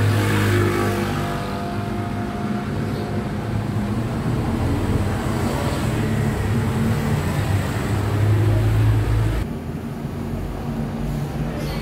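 Steady low motor hum over a background of traffic-like noise; the hum drops away about nine and a half seconds in.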